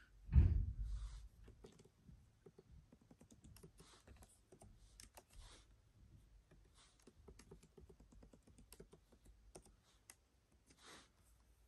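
Typing on a 14-inch M1 Pro MacBook Pro's built-in keyboard: scattered soft key clicks throughout. A low thump about half a second in is the loudest sound.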